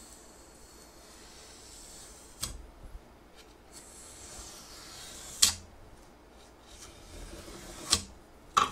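Knife blade drawn along the edge of a steel square, scoring a photo mounted on hardboard in slow, light strokes: a faint scratchy rasp. Sharp clicks come about two and a half seconds in, at five and a half seconds (the loudest), and near the end.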